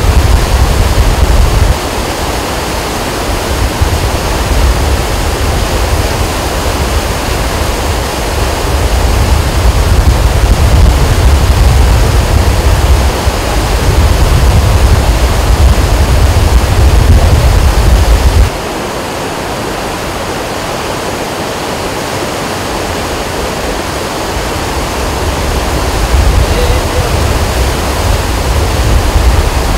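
River in spate rushing and churning over flood debris: a steady, loud wash of water noise. Under it a heavy low rumble drops away abruptly about two seconds in and again after about eighteen seconds, then returns near the end.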